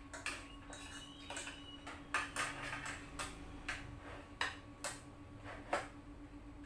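Spoons and forks clicking and tapping against bowls and plates during a meal: irregular light clinks, with a few louder ones near the middle and end.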